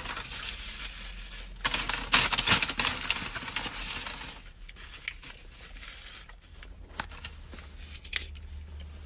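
Paper food packaging crinkling and rustling as it is handled and torn, loudest in the first four seconds, then quieter handling with a few sharp clicks.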